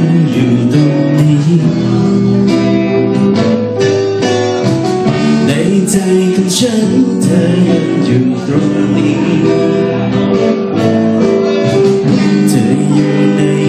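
Live band playing a song, with guitar strummed to the fore over held keyboard chords, at a steady volume.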